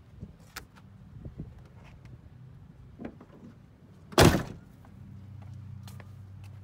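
A pickup truck's door slammed shut: one loud, short thud about four seconds in, after a few faint clicks of handling. A faint steady hum follows.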